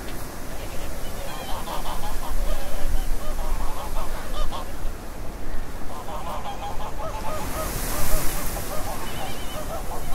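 A large flock of geese honking, many short calls overlapping continuously, with a brief rush of hiss about eight seconds in.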